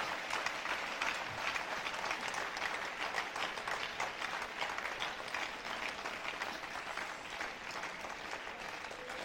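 A large congregation applauding: many hands clapping in a dense patter that eases off slightly near the end.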